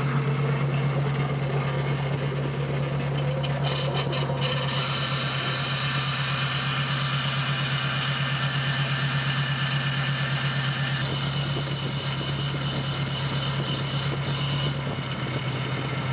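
Ford 302 V8 in a 1978 Mustang II King Cobra idling steadily while air is bled (burped) out of the freshly repaired power steering system. A thin high whine joins about four seconds in.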